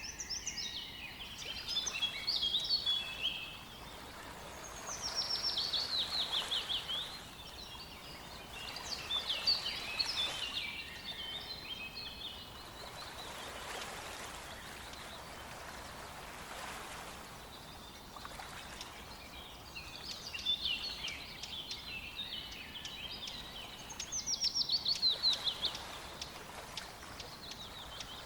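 Songbirds singing in short phrases of quick, high notes, some as falling runs. About five bouts come a few seconds apart over a steady hiss of flowing river water.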